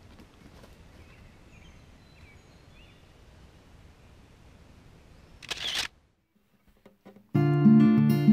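Faint outdoor ambience with a few soft chirps, then about five and a half seconds in a single short camera shutter click as the self-timer fires. After a second of dead silence, strummed acoustic guitar music begins near the end.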